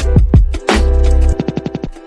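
Electronic music with a deep, heavy bass line and a punchy drum beat; a quick drum roll in the second half.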